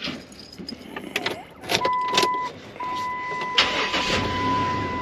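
Clicks and knocks of handling, then a steady high electronic beep that starts about two seconds in, breaks off briefly and comes back on, holding one pitch.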